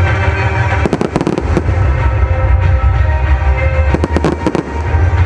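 Fireworks going off: two clusters of sharp bangs and crackles, about a second in and again around four seconds in, as aerial shells burst, over loud music.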